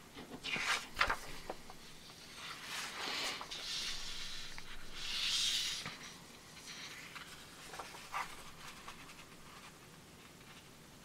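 A sheet of paper rustling and sliding on a cutting mat as hands turn it and fold it in half. There are sharp crackles about a second in, and the loudest swish comes around the middle, then only a few faint ticks.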